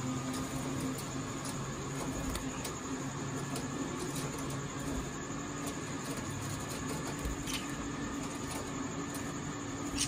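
A steady low machine hum with a few faint short clicks.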